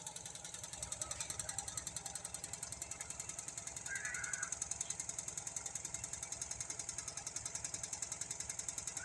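Used washing machine converted into a carpet spin dryer, spinning with a fast, even rattle of knocks several times a second. Two short squeaks, about four seconds in and near the end.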